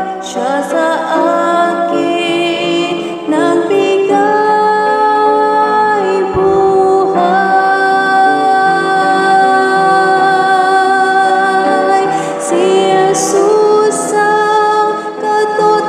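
A woman singing a Tagalog Christian worship song, accompanying herself on a digital keyboard, with long held notes.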